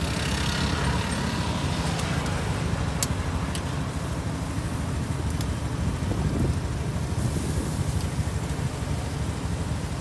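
Steady low rumble of traffic noise, with several sharp metallic clicks of tongs against the wire grill rack.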